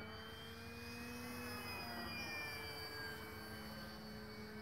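Sunnysky X3520 brushless electric motor and 13x6.5 propeller of a foam RC airplane, a steady whine as it flies overhead. The pitch rises slightly and then drops about halfway through.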